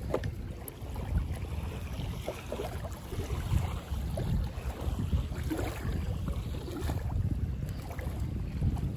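Wind buffeting the microphone, with small wind-driven waves lapping at the shallow water's edge.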